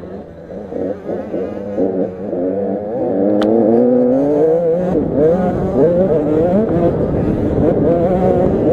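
Several 85cc motocross bikes racing, their engines revving up and down in overlapping notes, growing louder about three seconds in.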